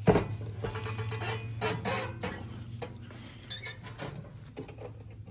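Footsteps crunching and rustling on a straw-covered floor, with a sharp knock at the start and scattered light clicks and clatter, over a steady low hum.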